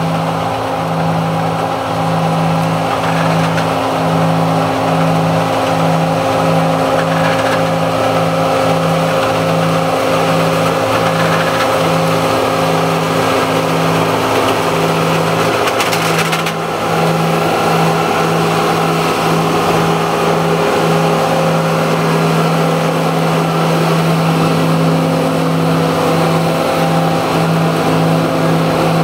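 New Holland self-propelled grape harvester running, a steady loud machine drone with a low hum that pulses on and off irregularly. It drives out of the vine row and passes close by.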